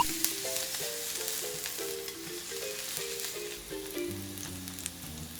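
Steak sizzling in a frying pan, a steady crackling hiss, under a light background melody of short notes; a bass line comes in about four seconds in.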